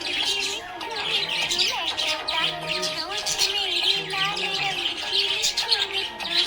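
Budgie chirping and chattering rapidly without pause, over background music.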